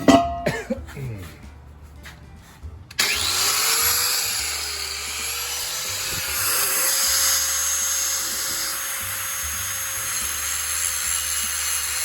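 Sharp clatter right at the start, then about three seconds in an angle grinder starts up, its motor whine rising briefly to a steady pitch, and runs on grinding, cutting back a part on the Prius that the 15-inch wheel rubs against.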